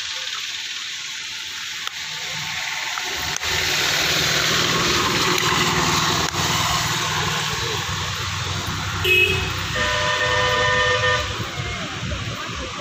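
Road traffic passing close by, a steady rush of engine and tyre noise that swells about three and a half seconds in. About nine seconds in a vehicle horn gives a short beep, then a longer blast lasting about a second and a half.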